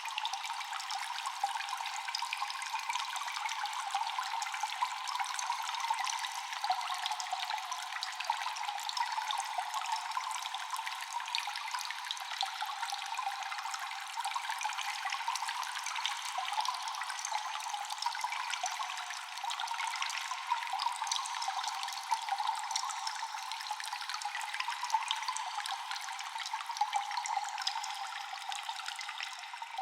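Cave ambience of constant echoing water drips: many small drops ticking over a steady trickle of running water.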